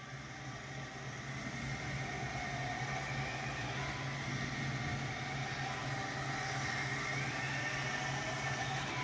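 Team Associated RC10B6.4D electric 2WD RC buggy running laps, its motor and gears whining and rising and falling in pitch as the throttle changes, over a steady low hum.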